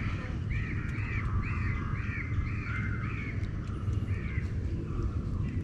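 A bird calling: a run of about eight short arched calls, roughly two a second, stopping about four and a half seconds in, over a steady low rumble.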